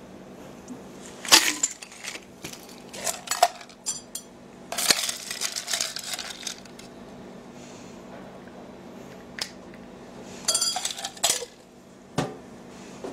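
Metal cocktail shaker and its parts clinking and knocking as the drink is poured out and the shaker is handled and set down: a string of separate clinks and taps, with a ringing metal clink near the end.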